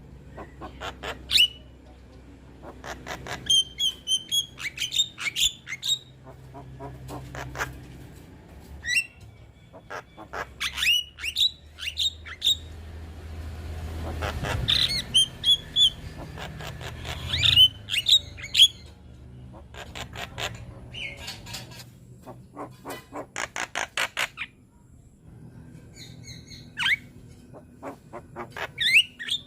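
Young Javan myna (jalak kebo) singing its busy, varied song: quick runs of rapid clicks mixed with short sharp whistles and harsh squawking calls, repeated in bursts.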